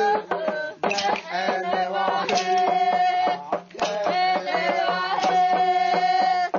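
Uitoto ritual chant sung by a group of men and women, in long held, wavering notes, over a quick steady beat of sharp percussive strikes.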